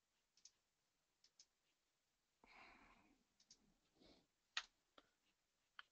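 Near silence, broken by a few faint computer mouse clicks, the sharpest about four and a half seconds in, and a soft breath about two and a half seconds in.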